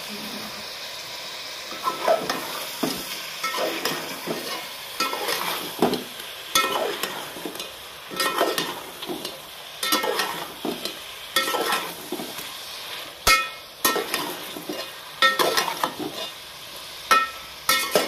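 Meat frying in a metal cooking pot for bhuna gosht, stirred and scraped with a long spoon. A steady sizzle is joined about two seconds in by repeated scraping strokes with a metallic clink, roughly one a second. This is the bhuna stage, with turmeric and whole spices just added.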